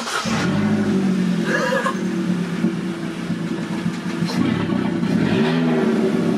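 Vauxhall Corsa engine starting and settling into a steady idle, loud through a straight-pipe exhaust with the middle silencer cut out. It flares up just after it catches and gets a short blip of throttle near the end.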